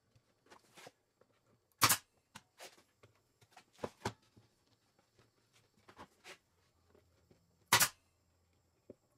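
Pneumatic brad nailer firing an 18-gauge brad into the plywood cabinet near the end, a single sharp clack. An equally sharp clack comes about two seconds in, with a few light knocks and taps of the wood and tool being handled between.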